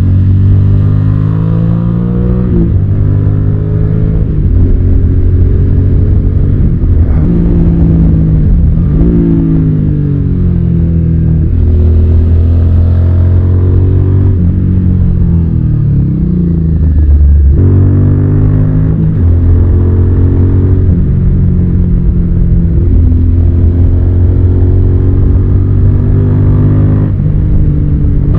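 Suzuki SV650's 645 cc V-twin engine pulling hard through the gears. The engine note climbs and drops back again and again as it is shifted or the throttle is eased.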